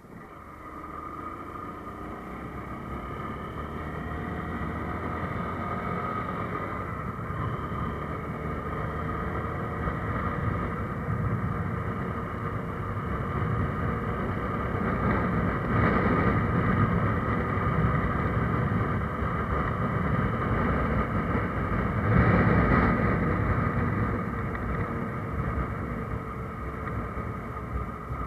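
Motorcycle engine running with road and wind noise as the bike rides along, growing louder over the first several seconds, with two louder rushes of noise about sixteen and twenty-two seconds in.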